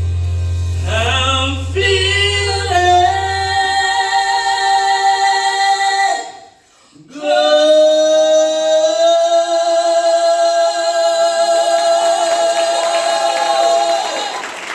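Two singers holding long wordless closing notes in harmony, gliding up at first and then sustaining a final note with vibrato; a low instrument note rings out underneath and fades over the first few seconds. The voices break off briefly about six and a half seconds in, then hold one long final note that tapers near the end.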